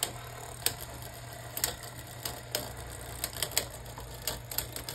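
Plastic Beyblade spinning tops clashing in a stadium: a run of irregular sharp clicks and knocks, a few a second, as the tops strike each other and the stadium walls.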